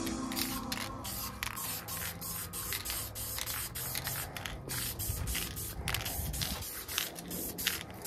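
Self-etching primer being sprayed in many short hissing bursts, a few a second.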